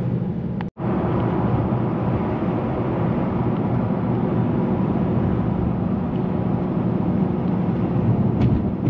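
Steady road and engine noise inside a moving car's cabin while cruising, with one very short dropout under a second in.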